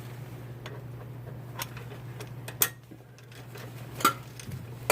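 A handful of sharp metallic clinks about a second apart, from tools and exhaust bolts being handled, over a steady low hum.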